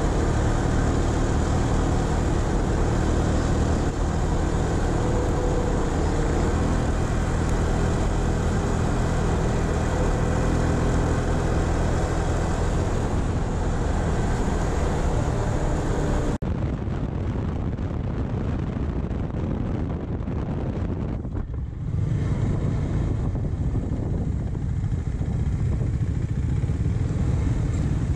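KTM 390 Adventure's single-cylinder engine running steadily at road speed on a dirt road, with heavy wind and tyre noise. About 16 seconds in the sound cuts to a quieter stretch. From about 22 seconds the engine runs at low revs and low speed, with much less wind.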